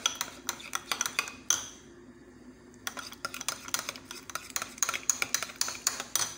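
Metal spoon stirring thick ogbono paste and hot soup stock in a glass bowl, rapid scraping and clinking against the glass, with a pause of about a second partway through.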